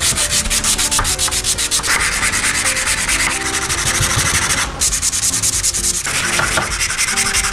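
A small wooden piece rubbed by hand back and forth across sandpaper laid flat on a workbench: a fast, even scratching of several strokes a second, broken by short pauses about two-thirds of the way through.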